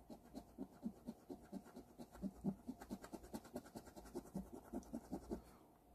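Coin scratching the coating off a scratch-off lottery ticket in quick, short, faint strokes, several a second, stopping near the end.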